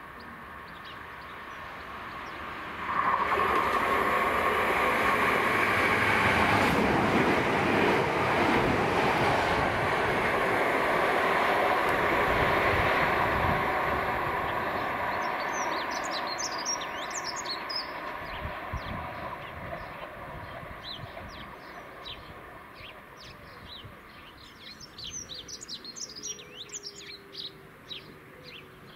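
Southern Class 377 Electrostar electric multiple unit running past, loud from about three seconds in with a steady rumble and faint motor whine, then fading as it draws away. Birds chirp over it in the second half.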